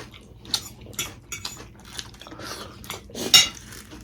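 Cutlery clicking and scraping against dishes while eating, a string of short knocks with the loudest near the end.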